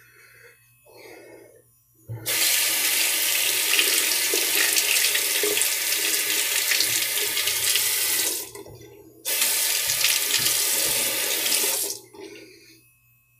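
Tap water running into a sink: it flows for about six seconds, stops for about a second, then runs again for about three seconds.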